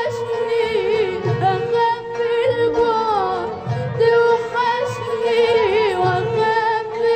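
Arabic classical orchestra playing a sustained, ornamented melody line with vibrato over a pulsing low accompaniment.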